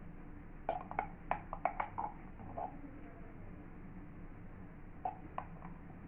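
A spoon clicking and tapping as spoonfuls of melted ghee are added to flour in a glass bowl: a quick run of small clicks about a second in and two more near the end, over a steady low hum.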